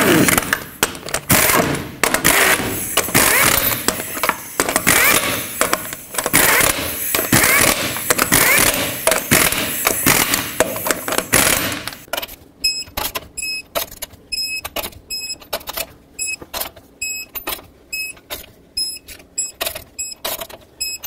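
Pneumatic impact wrench hammering lug nuts onto a steel wheel for about twelve seconds. It is followed by a steady string of sharp, ringing metallic clicks, one or two a second, from a torque wrench bringing the lug nuts to torque.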